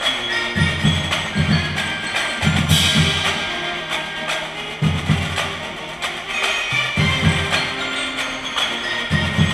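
Community marching band playing in rehearsal: percussion keeps a steady beat under melodic wind and bell parts, with low strokes coming in short clusters.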